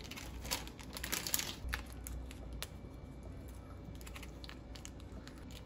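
Kitchen handling sounds while pasta is being prepared: light clicks of utensils and some rustling, busiest in the first two seconds, then only occasional clicks.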